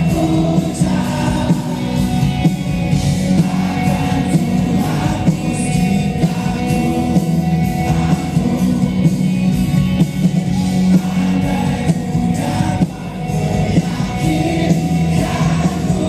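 Live rock band playing a song with a male lead singer over electric guitars and drums.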